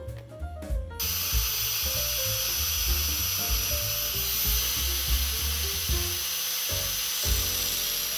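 Angle grinder grinding the jaw of a pair of steel locking pliers smooth. It starts about a second in and runs steadily with a high whine. Background music plays underneath.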